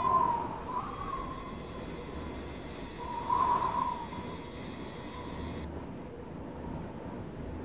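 Designed sound effects for an animation of the Mars Science Laboratory spacecraft: a wavering mid-pitched tone that swells twice, over a low rushing rumble, with a high thin whine that cuts off suddenly a little before six seconds in.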